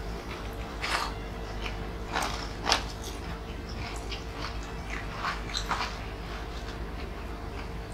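People eating with their hands: scattered wet chewing and lip smacks, a few sharper ones near three seconds in and again in a quick cluster past five seconds, over a steady low hum.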